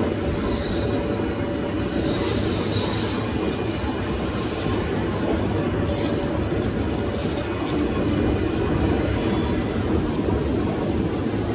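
TIG welding arc burning steadily while bronze filler rod is fed in, a continuous hiss over a steady low rumble that carries through the whole weld.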